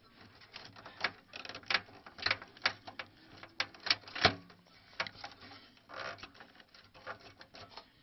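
Irregular clicks, taps and rattles of hands handling plastic and metal parts inside a desktop computer case, with a sharper knock about four seconds in.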